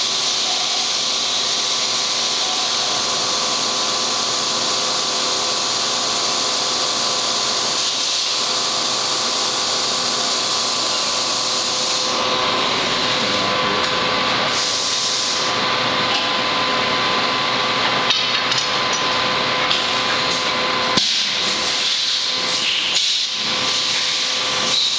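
Fryer MC-60 vertical machining center milling a metal block under flood coolant: a steady, loud hiss of coolant spray and cutting, with the spindle's steady whine. The sound changes about halfway, and a few sharp clicks come in the last several seconds.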